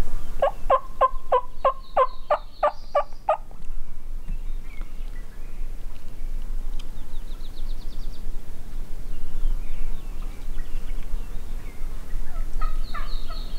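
A turkey calling: a run of about ten quick, evenly spaced notes lasting about three seconds, and another such run starting near the end.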